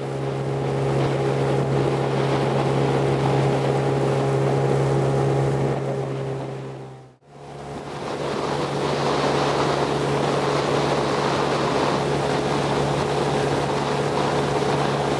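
Skiff's outboard motor running at a steady speed, a constant low hum with wind and water rushing past. The sound drops out abruptly about seven seconds in and fades back up to the same running sound.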